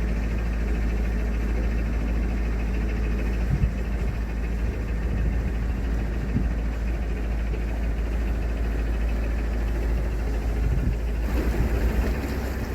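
Narrowboat's diesel engine running steadily while the boat cruises along the canal.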